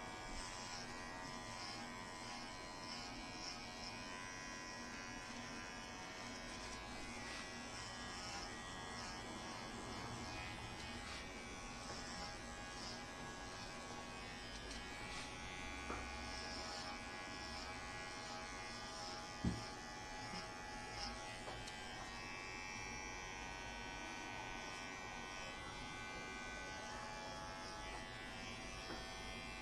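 Electric hair clippers running with a steady buzz as they cut the hair short. One brief click about two-thirds of the way through.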